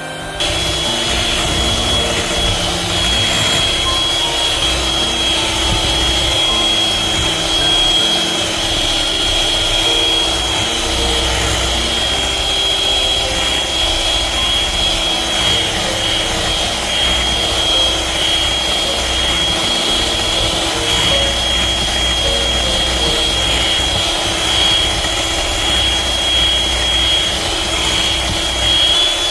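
Electric hand mixer running steadily at high speed, its beaters whipping cream and condensed milk in a glass bowl: a constant high motor whine over a lower hum and the churning of the beaters. It starts about half a second in.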